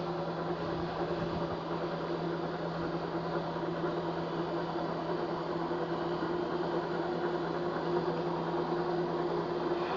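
Bode rotilting welding positioner's electric drive running steadily: an even hum with a low tone and a higher one above it.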